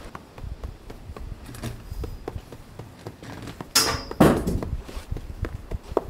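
Strong gusting wind buffeting the microphone with a low rumble, with many small knocks and two loud short scrapes just before and just after four seconds in.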